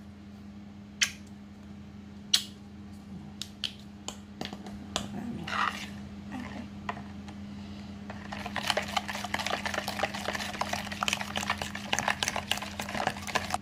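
Metal spoon stirring thick char siu marinade in a plastic bowl. A few separate clinks come first, then from about eight seconds in a quick, continuous run of scraping and clinking against the bowl.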